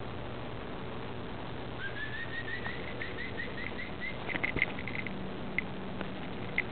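A bird singing a run of short, rising whistled notes, about five a second, the run creeping up in pitch, over a steady background hiss and hum. About halfway through come a few sharper chirps and clicks.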